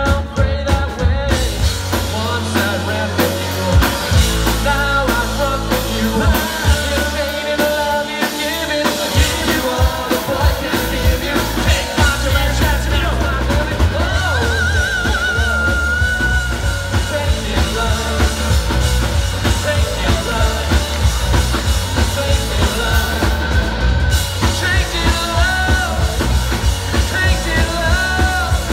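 Rock band playing live through a PA: electric guitars, bass guitar and a drum kit keeping a steady beat.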